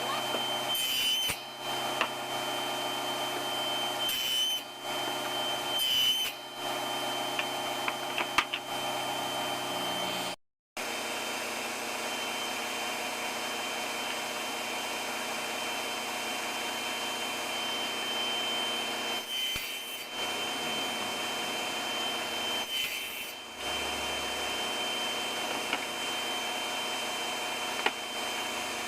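Table saw running steadily with a constant whine, with a few brief dips in level. The sound cuts out completely for a moment about ten seconds in.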